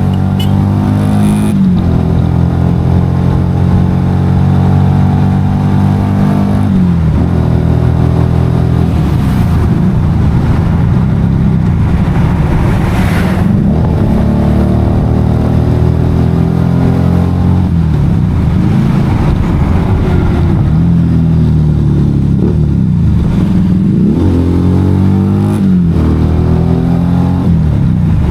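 Motorcycle engine running while being ridden. Its note drops sharply several times and climbs again as the revs change.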